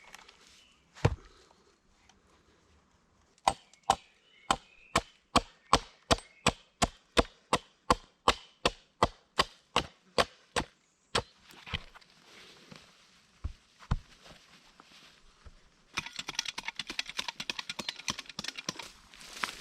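Wood being chopped with a hand tool: one sharp blow, then a fast, even run of strikes, about three a second for some seven seconds, followed by a few scattered blows. Near the end a dense crackling rustle takes over.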